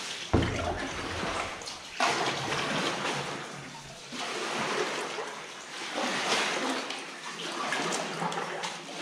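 Oars splashing and water sloshing as an inflatable rubber boat is rowed, the strokes coming about every two seconds.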